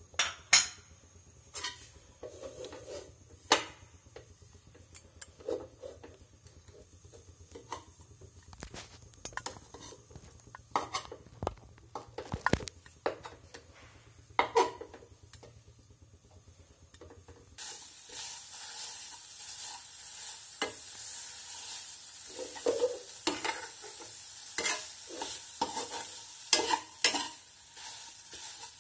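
Perforated metal spatula scraping and knocking against a metal kadai as khoya (mawa) is stirred and roasted, in scattered clinks and scrapes. About two-thirds of the way in, a steady sizzling hiss of the khoya frying starts under the stirring.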